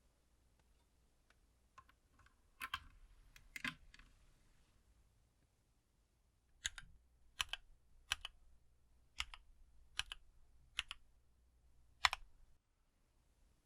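Keys on a mechanical keyboard with lubed Kailh Box Black linear switches, pressed one at a time. A few soft clicks and two louder strokes come first, then seven separate clacks about a second apart.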